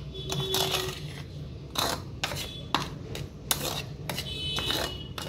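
Steel spoon stirring dry gram flour and spices in a bowl, scraping and clinking against the bowl in repeated irregular strokes.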